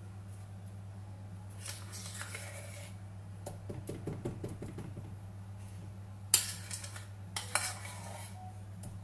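A spoon scraping thick cake batter out of a mixing bowl into a cake mould, with quick light taps of the spoon against the bowl and a sharp clack about six seconds in.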